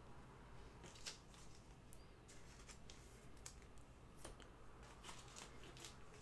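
Near silence with faint, scattered light clicks and ticks from trading cards being handled.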